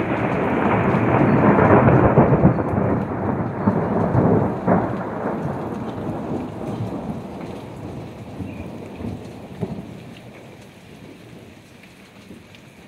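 Thunder from a lightning strike: a loud rumble, loudest about two seconds in, with a sharp crack a few seconds later, then dying away slowly over the following seconds.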